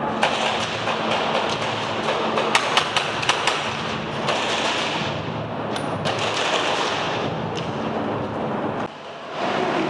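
Airsoft guns firing in an indoor arena: a quick run of sharp snaps about two and a half to three and a half seconds in, with a few scattered shots, over steady rustling noise.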